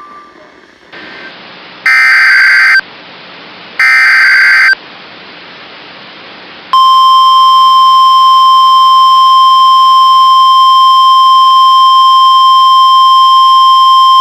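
NOAA Weather Radio emergency alert: two loud, buzzy digital data bursts (the SAME header) about two seconds apart over background hiss. Then, about seven seconds in, the long steady warning alarm tone begins. The tone signals that a new warning is about to be read, here a tornado warning.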